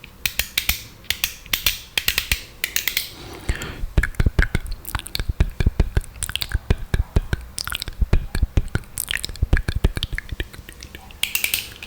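Close-miked wet mouth sounds: quick, irregular runs of tongue clicks and spitty lip smacks, with a few short breathy hisses.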